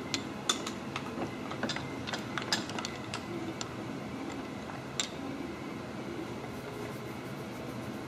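Milling machine spindle running steadily, turning a thread tap used as a hob against a bolt to cut a hobbed extruder gear, with a scatter of sharp clicks in the first few seconds and another about five seconds in.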